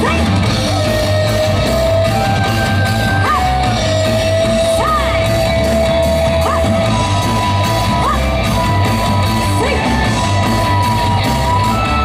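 Loud recorded yosakoi dance music played over a PA: a heavy, steady drum beat under a melody of long held notes with short upward pitch slides, with yells mixed in.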